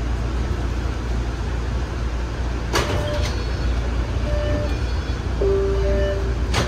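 Low, steady rumble of a new MBTA Orange Line subway car stopped at a station. About three seconds in, a sharp clunk as the doors open, followed by a few short tones.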